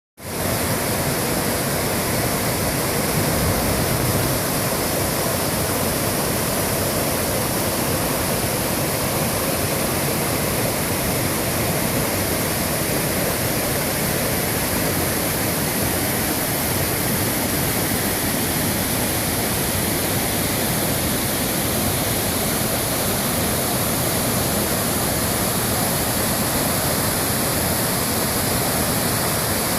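Rushing water of the Tone River's mountain headwaters, a steady, even noise of flowing water.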